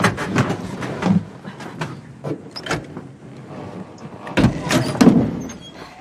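Handcuffs being worked against a walker's teeth and head: a rapid, irregular run of metal clicks, knocks and rattles, with a heavier thump about four and a half seconds in.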